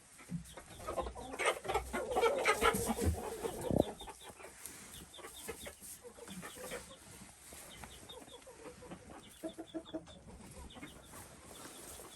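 A flock of chickens clucking and calling, with a louder burst of overlapping calls in the first few seconds, then scattered quieter clucks.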